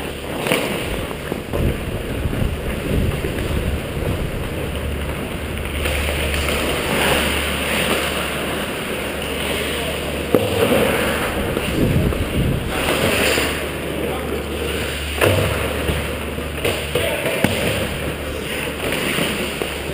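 Ice hockey skates carving and scraping across the ice, with several sharp knocks of sticks and puck in the second half, over a steady low hum and indistinct shouted voices echoing in the rink.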